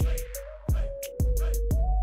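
Background hip hop music with a heavy kick drum, ticking hi-hats and a held synth line.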